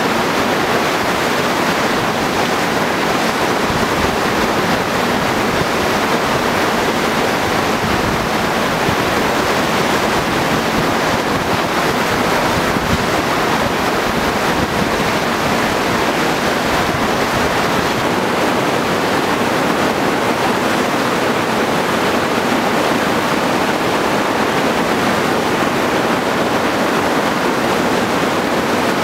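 Steady, loud rush of whitewater from a river standing wave, the river pouring over a whitewater-park wave feature.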